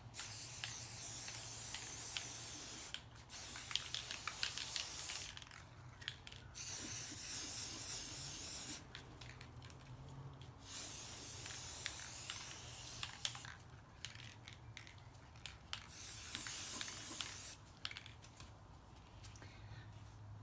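Aerosol spray-paint can spraying in about five bursts of two to three seconds each, with short gaps of clicking between them, as a coat of paint-and-primer goes onto a dryer vent.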